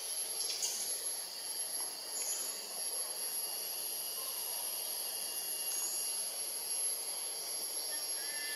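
A steady, high-pitched insect chorus of the tropical forest, with a few faint short chirps.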